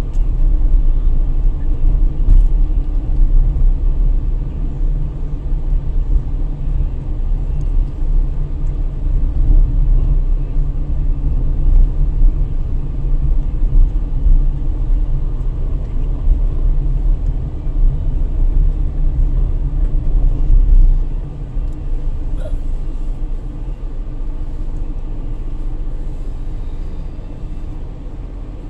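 Car road noise heard inside the cabin while driving: a steady low rumble of engine and tyres. It drops off about three quarters of the way through as the car slows in traffic.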